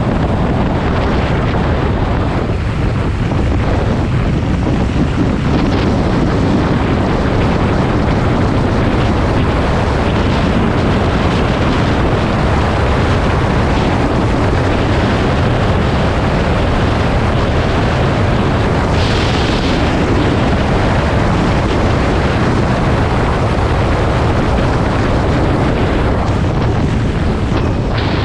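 Wind buffeting the microphone of a camera on a moving motorcycle: a loud, steady rush, with the bike running underneath. A brief hiss sounds about two-thirds of the way through.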